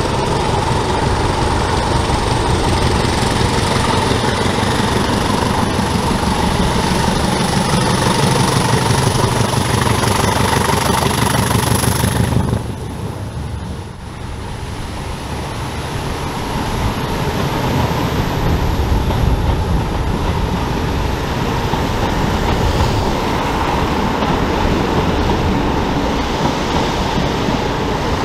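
Heritage diesel locomotive running under power, a loud steady engine sound with a high whistle that slowly rises in pitch. About twelve seconds in the sound drops suddenly, then builds back up.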